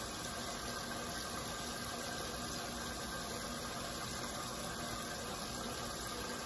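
Steady background hum and hiss, even throughout, with no distinct events.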